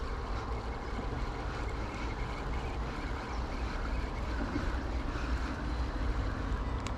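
Steady outdoor background noise: a low rumble with a faint hiss and no distinct events.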